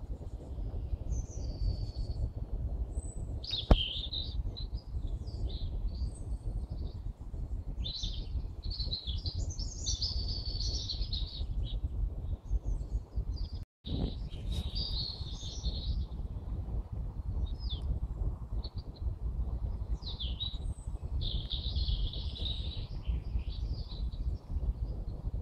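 Spring birdsong: several birds singing and chirping in short, varied phrases over a steady low rumble, with one sharp click about four seconds in.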